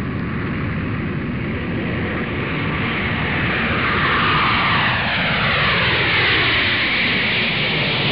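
Jet airliner flying past, a steady rumble under a whine that slides down in pitch over the second half as the aircraft passes, growing louder.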